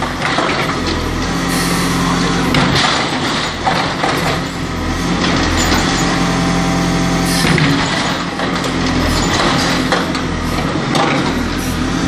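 JCB 4CX backhoe loader's diesel engine running under load while its backhoe bucket digs through broken asphalt and soil, with scrapes and knocks of the bucket on rubble now and then.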